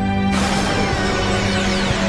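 Soundtrack music: a held chord, then about a third of a second in a sudden hissing swell with falling pitch sweeps comes in over a steady low drone.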